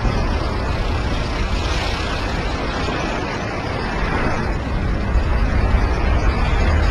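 Loud, steady noise of hurricane wind and surf, with a deep rumble of wind buffeting the microphone.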